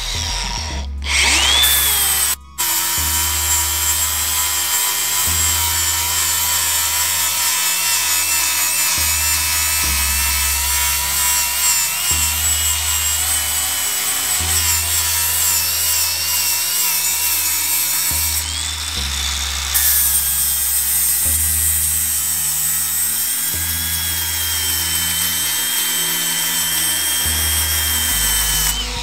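DeWalt cordless angle grinder with a flap disc grinding weld on a steel frame tube, its motor whining steadily under load, with one brief dropout about two and a half seconds in. It is knocking down the high spots of weld filler over a dent to blend the tube smooth. Background music with a steady bass line plays underneath.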